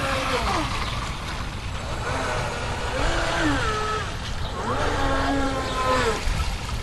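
RC speedboat's electric motor whining, its pitch dropping about half a second in, then rising and falling twice more as the throttle is eased off and opened again, over a low rumble.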